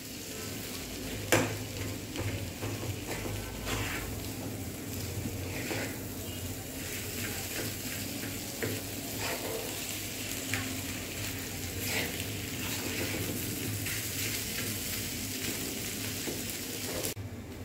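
Boiled potato chunks frying in oil in a non-stick kadai with a light sizzle, stirred and scraped with a wooden spoon, the spoon knocking against the pan now and then.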